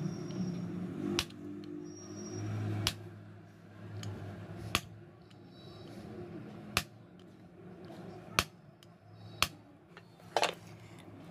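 Hammer striking a metal punch on a ceiling fan's worn motor shaft, about seven sharp metallic taps one to two seconds apart. The shaft is being punched as a stopgap fix instead of being replaced.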